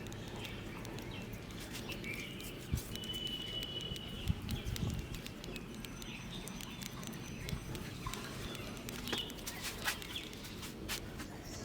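Hands rubbing and patting face wash onto a person's face: soft scattered pats and rubbing, with a few low thuds around four to five seconds in. A bird chirps briefly in the background about three seconds in.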